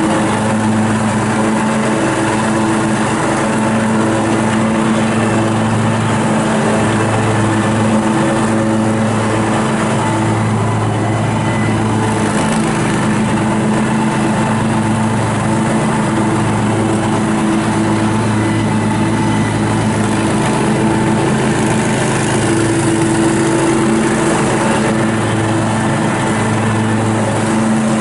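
Kubota G2000 garden tractor's 20-horsepower V-twin gas engine running at a steady speed as the tractor drives across grass.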